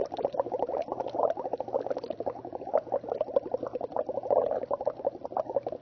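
Breath blown through a sipping straw into lime water (calcium hydroxide solution), bubbling continuously with dense, rapid little pops. This is the lime-water test, in which exhaled carbon dioxide is bubbled through the solution.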